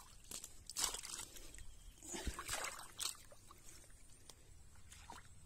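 Wet paddy mud squelching and cut rice stubble crackling underfoot, in short irregular bursts that are busiest in the first three seconds and thin out after.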